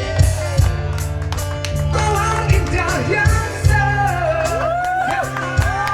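A male singer singing a Malay rock song over band music with drums and bass; the vocal line comes in strongly about two seconds in.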